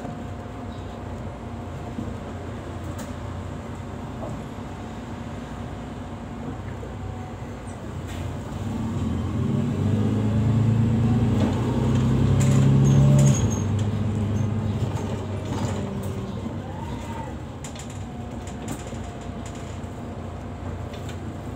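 Inside a city bus in motion: the engine and drivetrain run steadily, grow louder with rising pitch as the bus pulls away about eight seconds in, peak around thirteen seconds, then ease off as it settles back to cruising.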